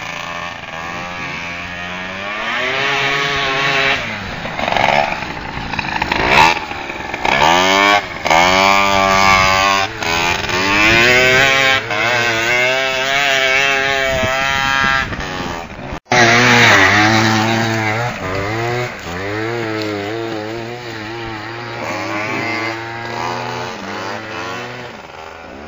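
Tuned two-stroke scooter engines revving hard off-road, a buzzing whine that repeatedly climbs in pitch and falls back as the throttle is opened and closed. The sound cuts out for a moment about sixteen seconds in.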